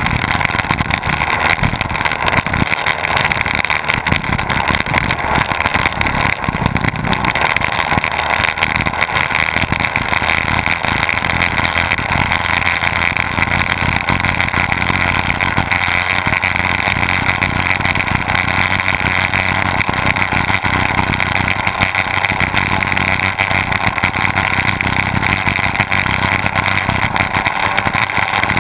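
Twin Mercury OptiMax two-stroke outboard motors on an offshore race boat running hard at racing speed: a loud, steady engine drone mixed with the rush of water spray.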